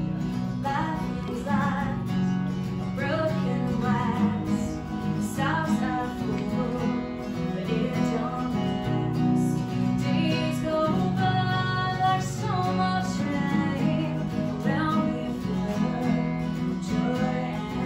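Acoustic guitar played live, strummed chords with a steady rhythm.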